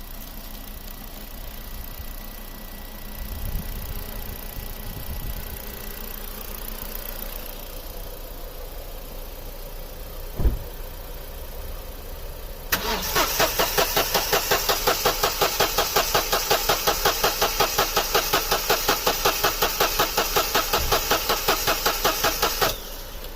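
A car engine cranking on its starter for about ten seconds in a rapid, even chug without catching, then stopping abruptly. The engine turns over strongly, which is taken as a sign that the battery is not the fault. Before the cranking there is a quieter steady engine hum and a single knock.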